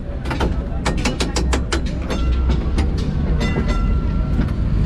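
Historic electric tram running slowly from inside the driver's cab: a low steady rumble, a fast run of sharp clicks in the first two seconds, and a high ringing tone heard twice.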